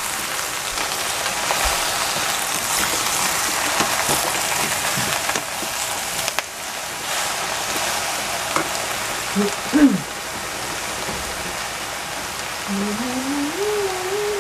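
Eggplant cubes sizzling with a steady hiss in a dry stainless saucepan, no oil added, while a wooden spatula stirs and scrapes them through the pan.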